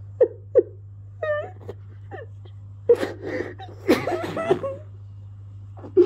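African grey parrot vocalizing: a few short pitched calls, then, about three seconds in, a longer run of chattering, speech-like sounds.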